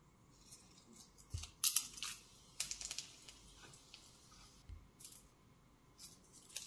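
Dry bay leaves and whole spices crackling and popping in hot oil in a stainless steel pan, in short irregular bursts that come thickest in the first half, with a couple of soft bumps from the pan.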